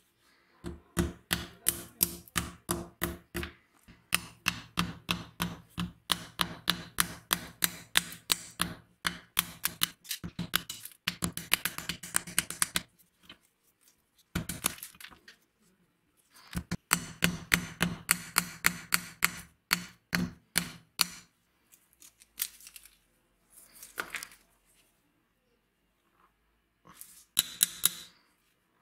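Hammer beating on rust-caked steel pliers laid on a steel bench vise. The metal blows ring and come in quick runs of about three a second with short pauses, thinning to a few scattered strikes near the end.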